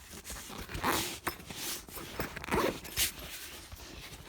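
A zipper on a soft tool case being pulled open in several quick strokes.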